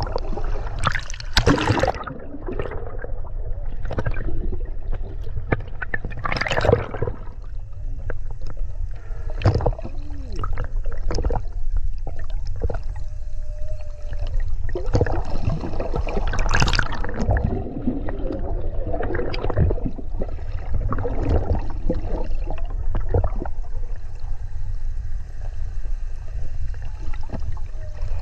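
Water sloshing and gurgling around an underwater camera held just below the sea surface, irregular splashes and bubbles over a constant low rumble. A couple of faint, brief tones come through partway along.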